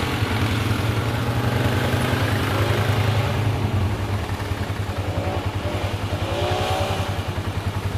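ATV and side-by-side engines running as the machines drive through shallow water and mud, with the revs rising twice about five and six and a half seconds in.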